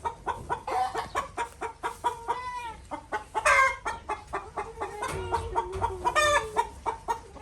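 Chickens clucking in quick, continual succession, with a few short, higher-pitched calls mixed in.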